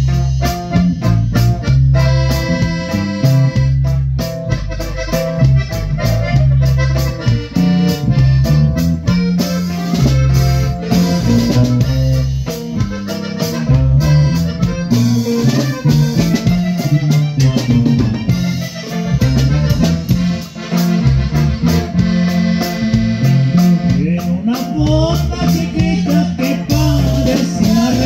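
Live norteño band playing instrumental music, with an accordion carrying the melody over a steady, bouncing bass line and rhythm.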